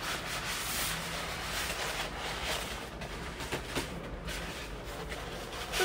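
Rolled paper posters rustling as they are unrolled and handled, the sheets curled tight from being rolled.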